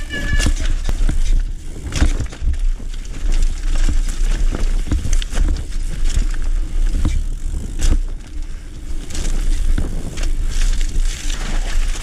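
Mountain bike ridden fast down a steep, rooty dirt trail: the chain, frame and suspension rattle and clatter over roots and bumps, with irregular sharp knocks, tyres crunching on dirt, and a steady wind rumble on the camera microphone.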